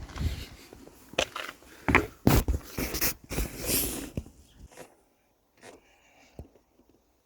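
A run of sharp clicks and knocks with some scraping, over about the first four seconds, then it falls almost quiet with a few faint ticks.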